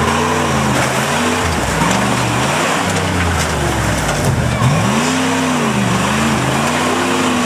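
Early Ford Bronco rock crawler's engine revving up and down again and again in short swells as the truck claws up a steep rock ledge, with a steady rushing noise underneath.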